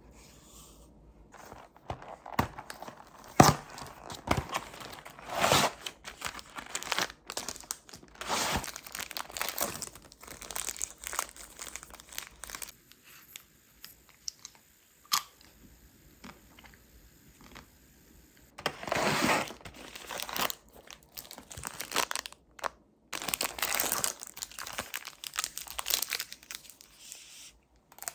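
Close-up crinkling, crunching and tearing of packaging being handled and opened, in irregular bursts with a quieter stretch in the middle.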